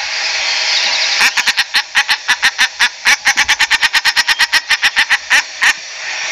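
Common shelduck calling: a rapid run of short calls, about six a second, starting about a second in and stopping near the end, over a steady hiss.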